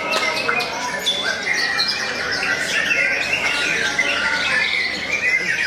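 Many songbirds singing at once in a dense, continuous chorus of overlapping chirps, trills and squawky calls.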